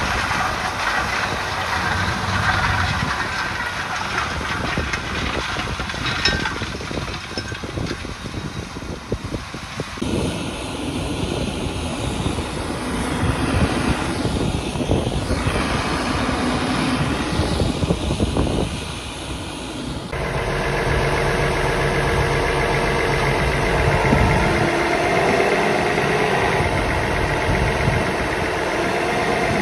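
Diesel farm machinery running, in three stretches with abrupt changes between them: a Claas Lexion 740 combine harvesting maize, then heavy machinery beside a full grain trailer, then a diesel engine idling with a steady hum.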